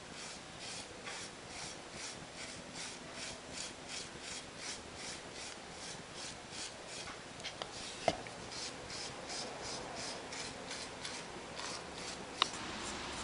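A white clay piece being rubbed by hand in quick, even strokes: a dry rasping, about three strokes a second. Two sharp clicks break in, near the middle and near the end.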